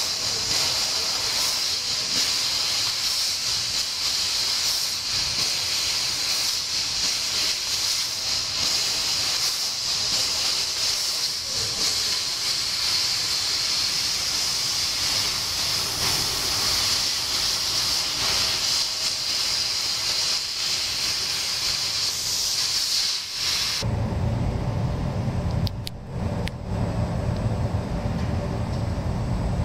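1500 W laser cutting machine cutting 1 mm stainless steel sheet: a loud, steady hiss of assist gas jetting from the cutting head. The hiss cuts off suddenly about 24 seconds in as the cut finishes, leaving a low machine hum with a couple of clicks.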